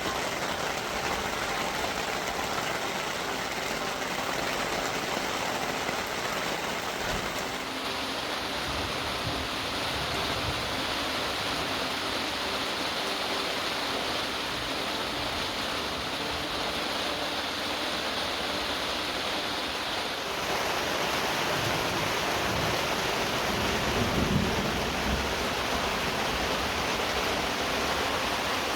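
Heavy rain falling, a steady even hiss that shifts abruptly in tone twice, about eight and twenty seconds in.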